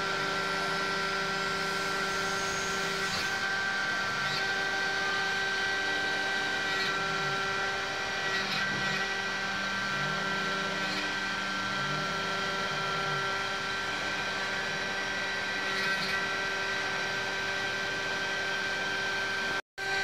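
CNC milling machine running, its spindle driving an end mill through a metal block: a steady mechanical whine made of several held tones, with small dips in pitch about once a second midway through as the cutter works. The sound cuts out for a moment near the end.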